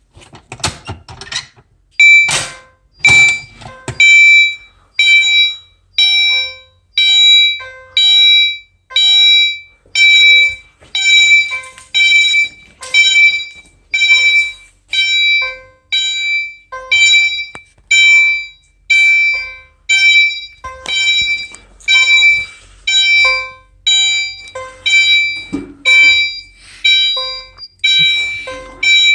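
A fire alarm signal strikes a ringing tone about once a second, each strike dying away before the next. It is steady and repetitive, with a short rattle just before the strikes begin.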